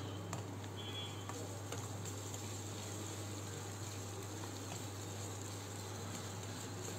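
Chopped vegetables and ginger-garlic paste frying in hot oil in a stainless steel pan, a faint steady sizzle, with a few light taps of a steel spoon stirring.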